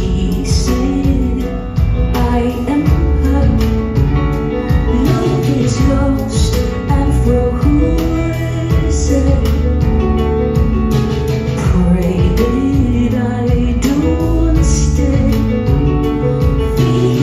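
Live music heard from the audience: a woman singing over a grand piano, with bass and drums behind her.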